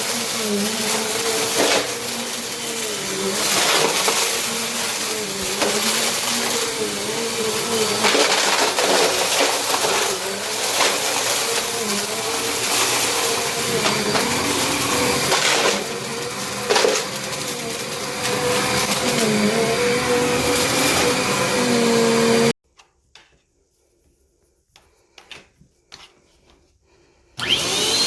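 Compact Bissell upright vacuum running with its brushroll crunching and crackling through gritty debris and coins, the motor's pitch wavering as it takes in the mess. The sound cuts off suddenly near the end, leaving near silence with a few faint clicks, then starts again just before the end.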